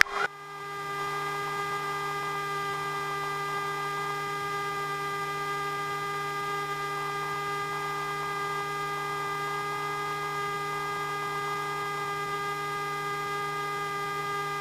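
Steady electrical hum on an aircraft intercom feed: several fixed tones over a faint hiss, holding level throughout, with a short click right at the start.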